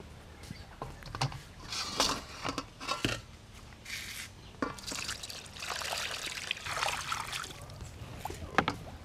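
Water sloshing, splashing and dripping in a stainless steel bowl as pieces of cleaned shark are lifted and washed in it by hand, in irregular bursts. A single sharp knock comes near the end.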